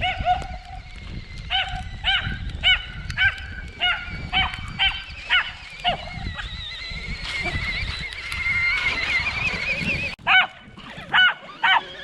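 About a dozen short, high animal calls, each a brief rising-and-falling note, coming roughly two a second with a pause around the middle. Under them in the second half runs a thin, wavering whine from the RC truck's electric motor as it drives.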